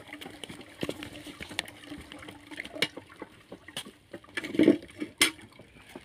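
Hand-operated sugarcane press crushing cane stalks, making irregular sharp clicks and cracks over a wet trickling. The loudest cracks come about four and a half to five seconds in.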